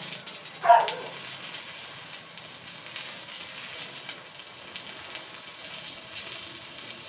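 Stick (MMA) electrode arc from a Mitsushi 300S inverter welder, set to about 76 amps, burning on a piece of steel with a steady crackling hiss. A brief loud sound comes just under a second in.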